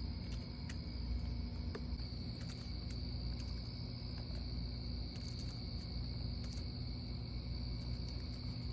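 Crickets trilling steadily at a high pitch, with a low rumble underneath.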